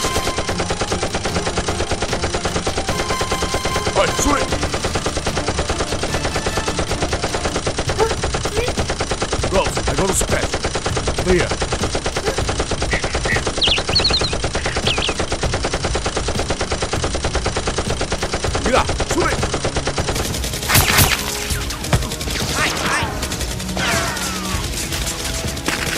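Rapid, continuous automatic gunfire, many shots a second without a break, with a few sharper single cracks standing out. About twenty seconds in the firing changes, with louder, more separated bursts.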